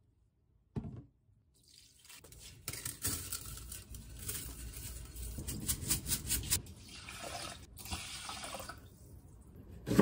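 A soft knock just under a second in, then water splashing and draining in a stainless-steel sink as rice is rinsed and poured through a plastic colander; the water starts about two seconds in and fades out near the end.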